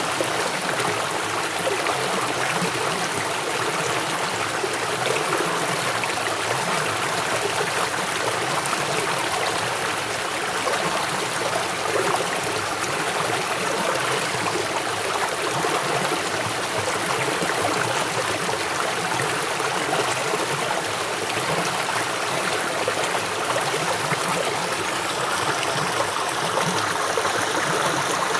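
River water flowing swiftly over rocks: a steady, even rushing, with a gurgling trickle in it.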